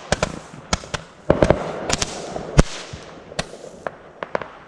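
Consumer fireworks going off in an irregular series of sharp bangs and crackles, several a second, with a hiss between them; the densest run comes in the middle.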